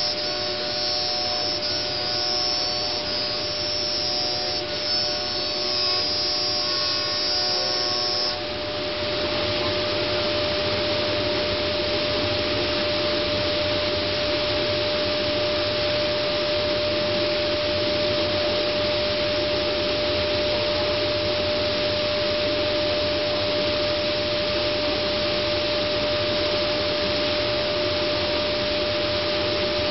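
Multicam 3000 Series CNC router running, with its vacuum and dust-collection air making a steady rush and a constant whine. About eight seconds in, a set of higher whining tones drops out and an even hiss carries on.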